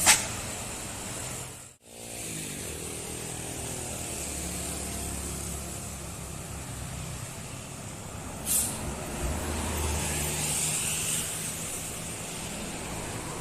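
Tour bus diesel engine running under load on a climb, with short sharp hisses of air from its air brakes: a loud one right at the start and another about eight and a half seconds in. The sound drops out briefly just before two seconds in.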